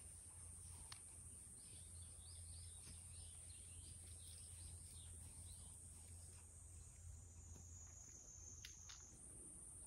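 Near silence: faint outdoor ambience with a steady high hiss and a run of faint bird chirps in the first half.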